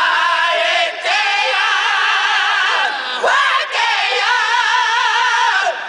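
A song with voices singing long, wavering notes.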